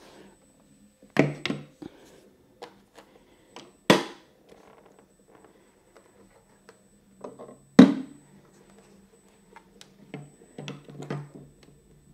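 Knocks and clunks of a heavy electric unicycle and its black plastic stand being handled and set down on a tabletop: a few separate thuds, the loudest about eight seconds in, then a short run of smaller clatters near the end.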